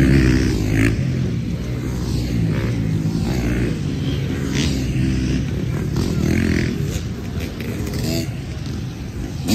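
Dirt bike engines revving as racing bikes ride past one after another on a dirt track, the pitch rising and falling as they accelerate. The loudest pass is at the start, and another bike revs up near the end.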